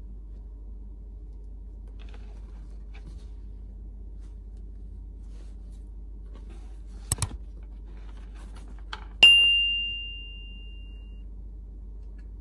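Two quick sharp clicks, then a single bright ding whose one ringing tone fades away over about two seconds, over a low steady hum. Faint crackling from the bread being pulled apart comes before and around them.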